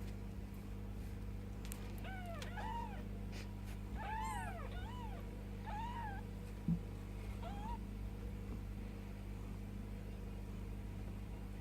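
Ten-day-old Bengal kittens mewing: a run of short, high, arching mews, about eight in a few seconds, over a steady low hum.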